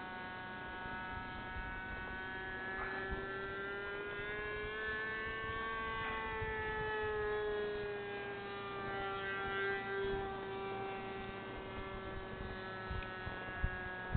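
Radio-controlled Seamaster float plane's engine running high-pitched in flight. Its pitch slowly rises, then falls as the plane passes by: a little Doppler effect.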